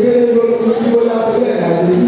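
Voices singing a melody in long held notes.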